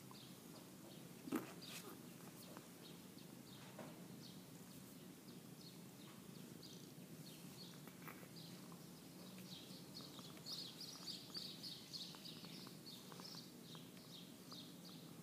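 Faint outdoor background with small birds chirping in short repeated calls, busiest about two-thirds of the way through. A single sharp knock sounds about a second and a half in.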